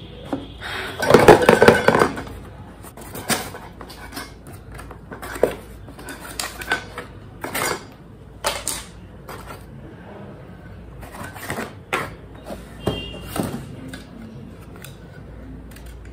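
Cardboard packaging being handled and opened by hand: rustling, scraping and scattered taps. There is a loud scraping burst about a second in, and the light clinks of a metal coffee tin come near the end.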